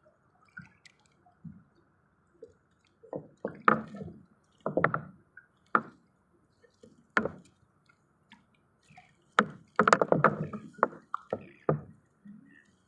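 Irregular knocks and wet thuds with dripping water, about a dozen hits, bunched thickly about two-thirds of the way through, over a faint steady high hum.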